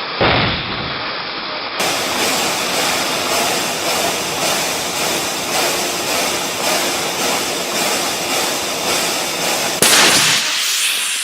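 Loud, steady hiss of high-pressure water from a hydroblast hose under test at 8,000–10,000 psi, with a sudden sharp burst near the end.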